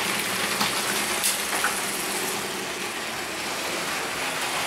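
Remote-controlled Lego City trains running on plastic track: a steady whirring rattle of the motors and wheels, with a few light clicks of Lego bricks being fitted together.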